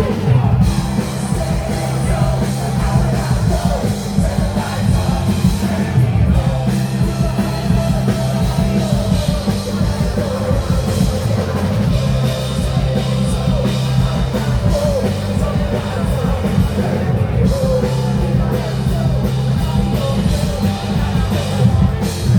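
Rock-style music with drums, a steady bass line and a singing voice.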